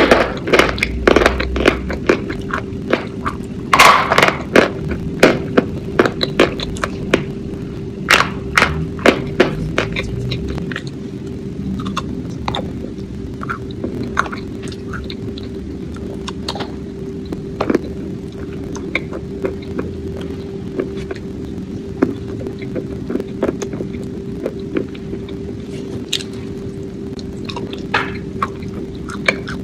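Close-miked eating sounds: crisp crunching and chewing, dense for the first ten seconds or so, then softer wet chewing and mouth smacks. A steady hum runs underneath.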